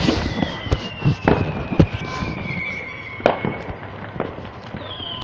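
Fireworks going off: a whistling firework sliding slowly down in pitch for about three seconds, with several sharp bangs and cracks, and a second whistle starting near the end.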